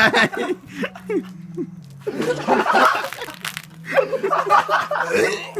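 Several people laughing and snickering in short bursts.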